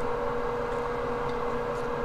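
Steady hum and hiss of a small motor or fan running, with one constant mid-pitched tone and no change in speed.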